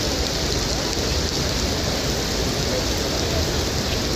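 Steady rain falling on wet stone paving, an even hiss that does not let up.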